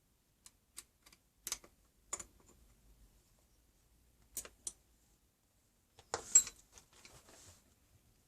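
Trend pocket hole jig being handled and adjusted: a series of light, sharp clicks and knocks of its metal parts, with a louder cluster of knocks about six seconds in.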